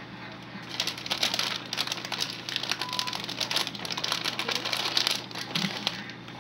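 Rapid crinkling and rustling of a plastic food packet being handled and shaken out over a bowl, starting about a second in and stopping near the end.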